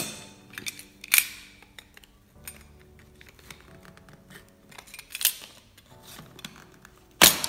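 Box cutter blade slitting the seal of a small cardboard cube box: a few short, sharp scraping rasps with handling rustles between them, the loudest near the end. Faint background music runs underneath.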